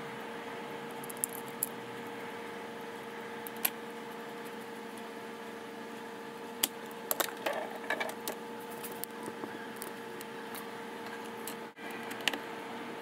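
Scattered light clicks and taps of small parts and tools being handled, with a few about a second in and a busier cluster around the middle, over a steady hum.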